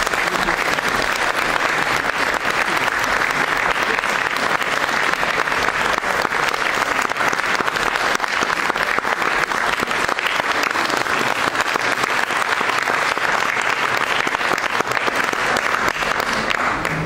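Audience applauding, a steady dense clapping that starts to die down right at the end.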